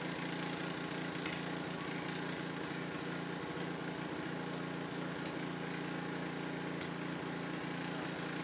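A motor running steadily at an unchanging pitch.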